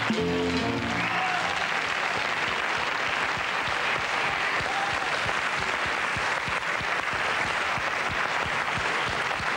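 Studio audience applauding steadily, a dense even clapping that holds at the same level throughout. A few notes of music fade out in the first second.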